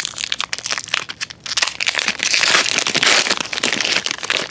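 A Topps Attax baseball card pack wrapper being torn open and crinkled by hand: a run of sharp crackles, densest and loudest in the second half.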